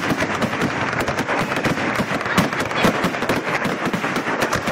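Fireworks display: a dense, rapid barrage of bangs and crackles, many per second, with no let-up.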